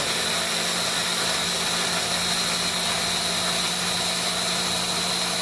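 Electric stick blender with its chopper bowl attachment running steadily, its motor whining, as it blends whole tomatoes into a purée.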